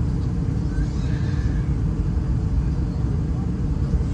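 Steady low rumble of an Airbus A320-211 airliner's engines and airflow, heard as even noise without any distinct events.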